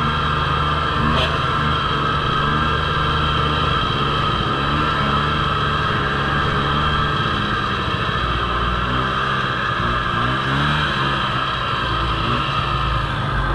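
Snowmobile engine running at a steady trail speed, its note wavering up and down in the last few seconds as the sled eases off.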